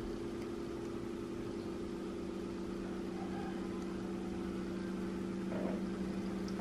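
Mitsubishi Xpander engine idling through an aftermarket racing exhaust, a steady, even drone. A brief small rustle comes about five and a half seconds in.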